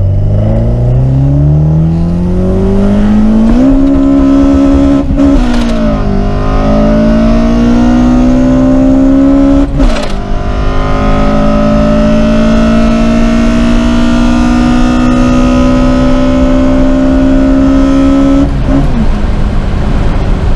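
Built Toyota 4A-GE 20-valve 1.6-litre four-cylinder pulling hard at full throttle through the gears, heard from inside the car: the revs climb, break and drop at upshifts about five and ten seconds in, climb slowly through a long next gear, then fall near the end.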